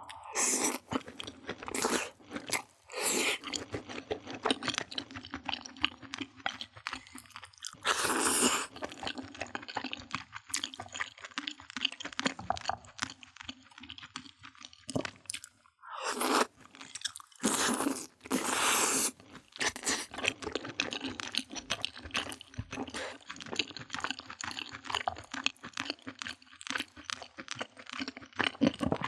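Close-up eating of crunchy food: a run of fine crackling chews punctuated by several loud, crisp crunching bites.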